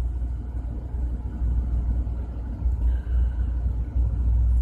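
A steady low rumble of background machinery noise, with a faint brief tone about three seconds in.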